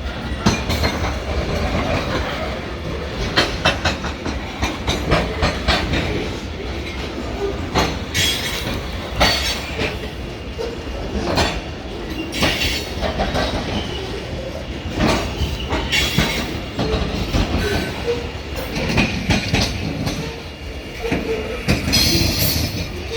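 Freight cars of a long trash train rolling past, their wheels clacking irregularly over the rail joints with a steady low rumble underneath. A few brief wheel squeals rise above it, about eight seconds in, again around twelve seconds, and near the end.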